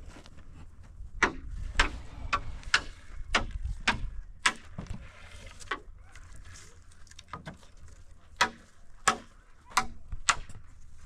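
Sharp knocks of wood being struck, at an irregular pace of about two a second, in two runs with a pause between.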